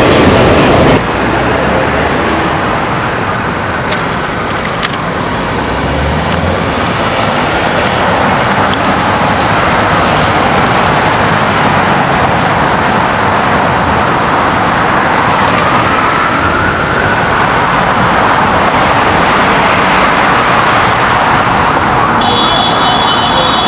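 City street traffic: a steady wash of passing cars at a busy intersection, with a faint wail rising and falling in the distance. It follows a second of subway train noise that cuts off abruptly.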